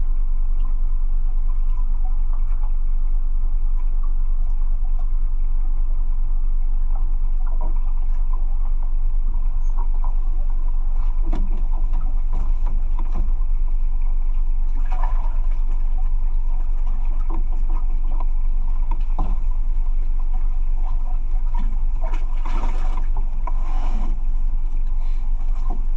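Fishing boat's engine idling with a steady deep hum, with scattered clicks and knocks, more of them in the second half.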